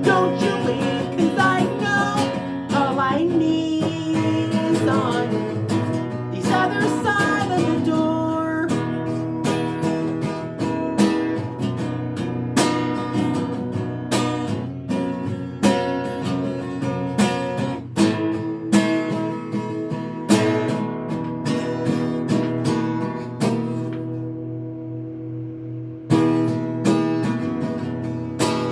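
Acoustic guitar strummed in a steady rhythm, an instrumental passage of a song. About 24 seconds in it dies down to a ringing chord, then the strumming starts again.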